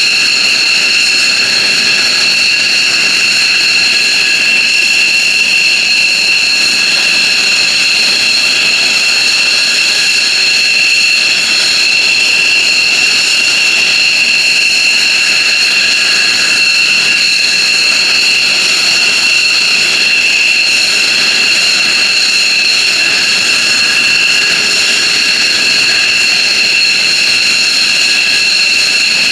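F-15J Eagle's twin Pratt & Whitney F100 turbofan engines running after start, giving a loud, steady high-pitched whine of several tones over a jet rush, with no spool-up or spool-down.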